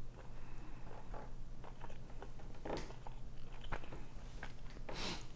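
A person biting and chewing food close to the microphone: small wet clicks and mouth smacks, with a stronger smack about three seconds in and another near the end.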